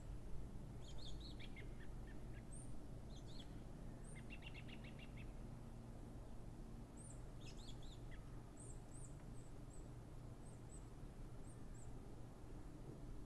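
Small birds chirping: scattered short high chirps throughout, a quick trill about four seconds in, over a steady low rumble of background noise.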